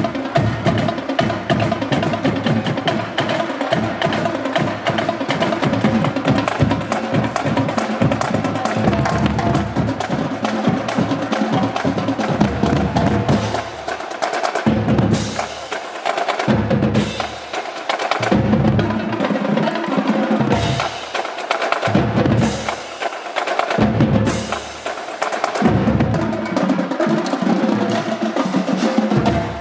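Marching band (fanfarra) playing, drums prominent: continuous drumming with sustained band tones for the first half, then loud accented ensemble hits about every two seconds with quieter gaps between.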